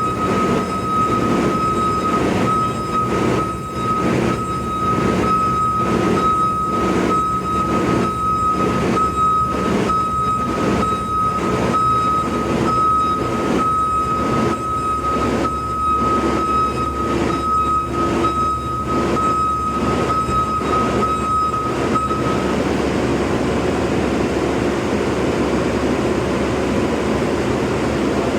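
Bobcat skid steer engine running with its backup alarm beeping about once a second as it reverses. The beeping stops a few seconds before the end while the engine keeps running.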